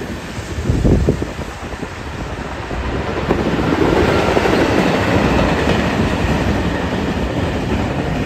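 Diesel-hauled freight train of hopper wagons passing close by. The loudest, low-pitched swell comes about a second in as the locomotive draws level, then the wagons' wheels rolling over the track make a steady loud noise.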